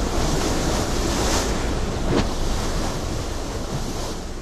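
Churning, splashing water: a loud, steady rushing wash with a couple of sharper splashes in the middle, slowly fading toward the end.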